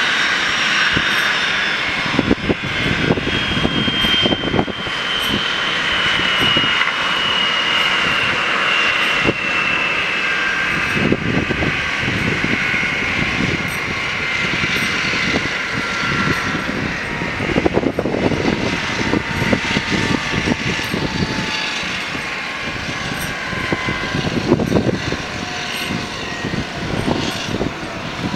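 Boeing 737-300's CFM56 turbofan engines running at low taxi thrust: a steady jet whine made of several tones that slowly fall in pitch, over a rushing hiss, with uneven low rumbling now and then.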